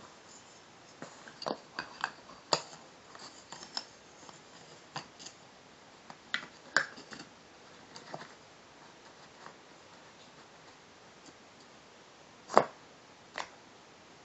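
Wooden toy train track pieces being handled and fitted together: scattered light clicks and knocks of wood on wood at irregular intervals, the loudest one near the end.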